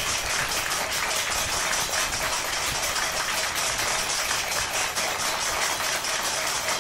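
Many hands clapping together in a dense, steady rattle of claps, with the clatter of metal plates being struck mixed in. It fades a little near the end.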